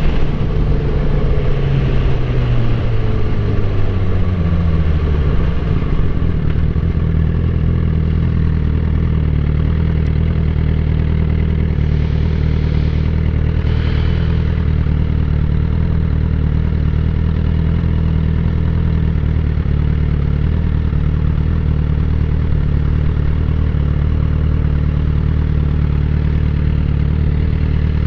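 Suzuki GSX-R1000 K8 motorcycle's inline-four engine, its revs falling over the first few seconds and then running at a steady speed.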